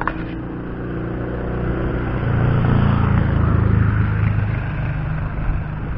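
A motor vehicle's engine passing: a steady hum that grows louder through the middle and eases off a little toward the end. A short click comes right at the start.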